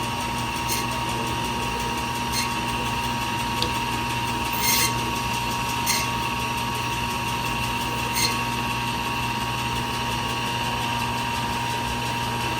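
Butcher's electric meat band saw running steadily while cutting up a whole chicken, with a few short sharp knocks as the blade goes through.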